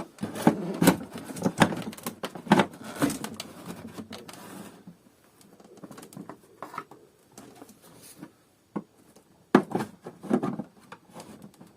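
Irregular clicks, knocks and rattles of hard plastic and a screwdriver as a vacuum cleaner's plastic housing is worked apart by hand. Busy for the first few seconds, sparse in the middle, with a few louder knocks near the end.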